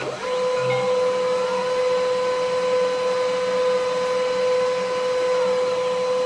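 Printer mechanism running with a loud, steady motor whine over a rushing noise.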